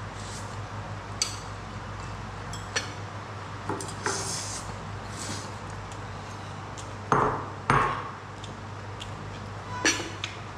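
Utensils clinking and tapping against a ceramic plate and bowl during a noodle meal, a few sharp ticks spread out, with two louder knocks a little past the middle.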